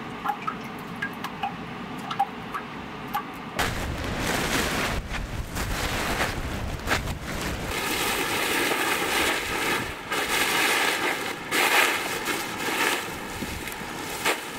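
Steady rushing wind noise on the microphone, with scattered crunching as coarse, freshly dried salt is scooped by hand from a heap on a tarp. The first few seconds are quieter, with a few small pops.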